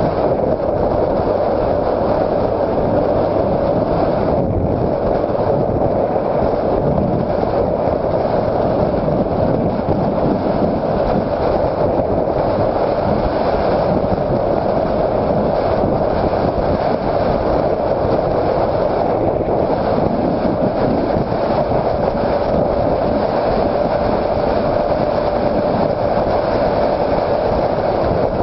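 2006 Honda CBR600RR's inline-four engine running at a steady, unchanging pitch while riding, with steady wind and road noise underneath.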